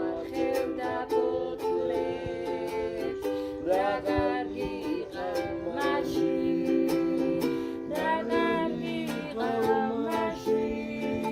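A Georgian folk song: a plucked string instrument played in a steady rhythm, with a voice singing phrases over it now and then.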